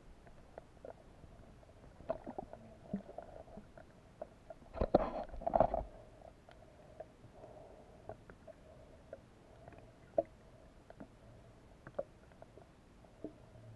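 Underwater sound picked up by a submerged action camera: scattered small ticks and a faint steady hum, with one louder rushing, rumbling burst of water noise lasting about a second, about five seconds in.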